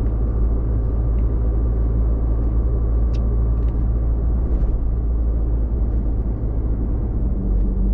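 Car driving along a street at low speed: a steady low engine and road rumble, heard from inside the cabin.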